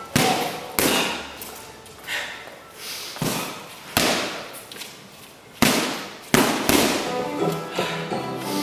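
Hard strikes landing on a hanging heavy punching bag: about seven sharp thuds at irregular intervals, two close together near the end. Music plays underneath throughout.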